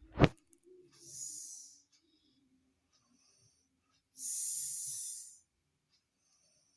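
Snoring: airy, hissing breaths, a short one about a second in and a longer one about four seconds in. A sharp click or knock right at the start is the loudest sound.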